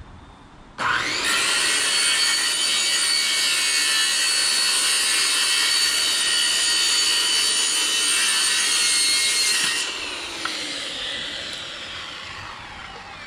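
Handheld circular saw cutting the excess fiberglass cloth off the edge of a foam-core panel. It starts sharply about a second in and runs steadily for about nine seconds. Then the blade winds down with a falling whine as the saw is lifted away.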